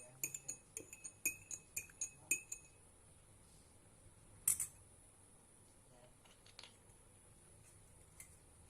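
A spoon clinking against a drinking glass while stirring honey into a drink: a quick run of ringing clinks for the first two and a half seconds, then one louder clink a couple of seconds later.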